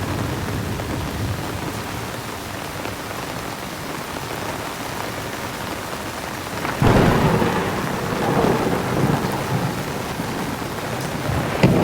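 Heavy rain falling steadily, then a sudden crackling thunderclap about seven seconds in that rolls on as a rumble for a few seconds, and a second sharp crack of thunder near the end.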